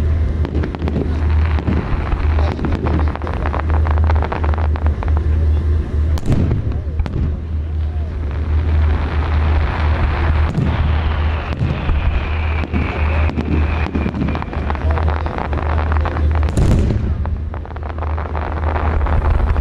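Fireworks display: a rapid, continuous series of aerial shell bursts banging and crackling over a steady low rumble, with two especially sharp bangs about six seconds in and near the end. A falling whistle sounds around the middle.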